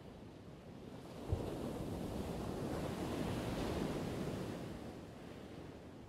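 Ocean surf: a wave washing in, its noise building over a couple of seconds and then fading away, with a short low thump about a second in.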